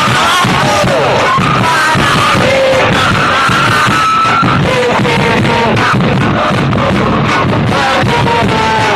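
Large crowd of football supporters singing a chant together, loud and steady, over a regular beat.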